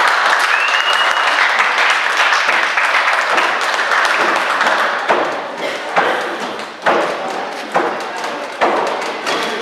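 Wrestling crowd in a hall shouting and cheering, then from about five seconds in a run of sharp thuds at a steady beat, a little under one a second, over the crowd.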